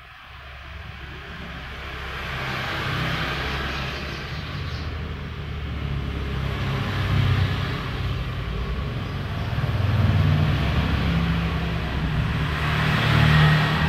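A low, continuous vehicle-engine rumble that builds up from quiet over the first few seconds and swells louder several times, loudest near the end.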